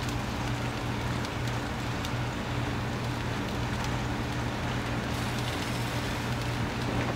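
Char-Griller Gravity 980 gravity-fed charcoal smoker running with its lid open: a steady low hum from its fan under an even hiss, with faint scattered crackles.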